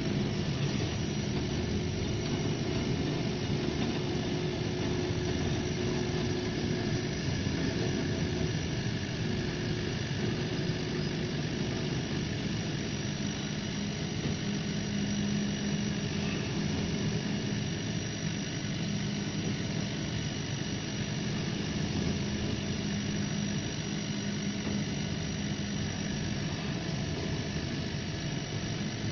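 80 W CO2 laser engraving machine running while it engraves plywood: a steady mechanical hum with a faint high whine throughout.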